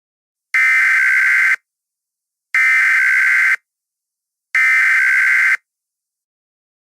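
Emergency Alert System SAME header tones: three harsh, buzzing bursts of digital data, each about a second long and a second apart. This coded header is the start of a new alert and is followed by the attention tone.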